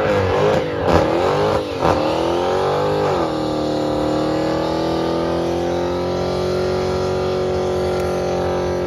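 Dodge Challenger engine revving hard during a tyre-smoking burnout: a few quick rises and falls in revs, then held at a steady high pitch from about three seconds in.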